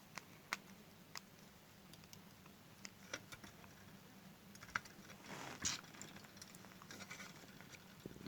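Faint, irregular small clicks and light taps of a screwdriver and metal parts being handled while a screw in a sewing machine foot pedal is tightened, with a brief soft scrape a little past halfway.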